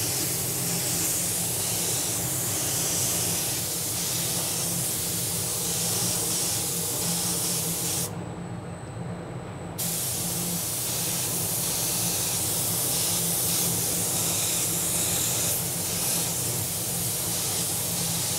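Gravity-feed spray gun hissing steadily as it sprays a wet coat of Cerakote. The hiss stops for about a second and a half some eight seconds in, then starts again.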